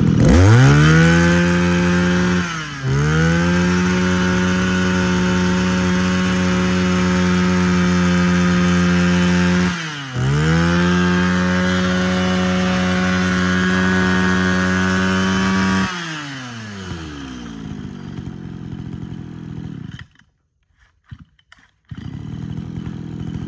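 Small two-stroke engine of a Mitsubishi TL231 23cc brush cutter revved to full throttle three times, with brief dips in between. About sixteen seconds in it falls to a low idle, then cuts out for a moment near the end.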